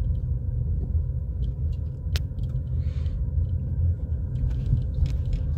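Steady low road and tyre rumble heard from inside the cab of a Ford Maverick Hybrid pickup as it drives slowly, with a single sharp click about two seconds in.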